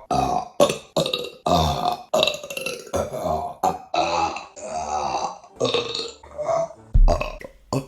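A woman burping over and over in quick succession, about two short belches a second, with a louder, deeper one about seven seconds in.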